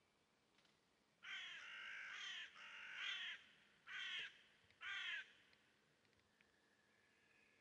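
A bird calling: two runs of quick repeated calls lasting about two seconds in all, then two short single calls about a second apart, over a very quiet background.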